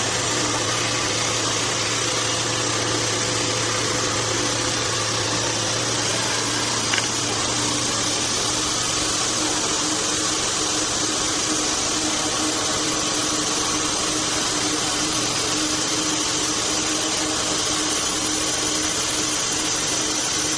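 Sawmill bandsaw running steadily, a continuous machine hum and whine with one brief tick about seven seconds in.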